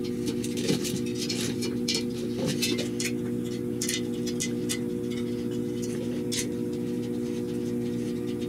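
Scattered light clicks and taps of small metal parts being handled on a steel linear rail, over a steady low hum.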